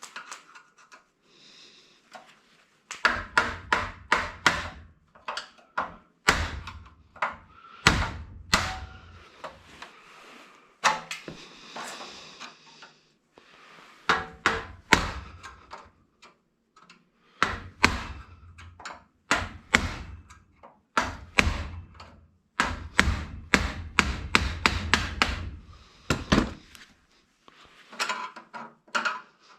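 Irregular knocking, clattering and snapping of hand tools on electronics scrap as a device is broken apart, in clusters of sharp hits with short pauses between.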